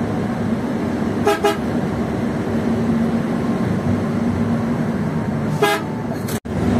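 Hyundai bus's diesel engine droning steadily inside the cab at highway speed, with the horn sounding two quick toots about a second in and another blast near the end, warning a truck ahead while overtaking.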